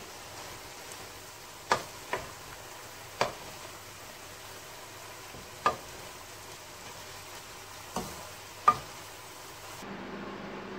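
Leafy greens sizzling as they are stir-fried in a non-stick wok, with a wooden spatula knocking sharply against the pan six times as it stirs. Near the end the sizzle gives way to a steady low hum.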